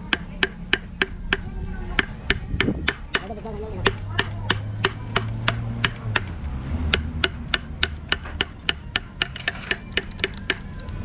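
Steady, rhythmic hammering on metal, about three sharp blows a second, during work on a truck's rear axle hub and wheel bearings.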